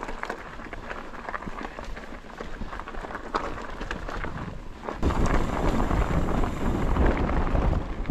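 Mountain bike tyres rolling over loose rocks and gravel, with many small clicks, knocks and rattles from the bike. About five seconds in, loud rumbling wind buffeting on the microphone comes in and covers them.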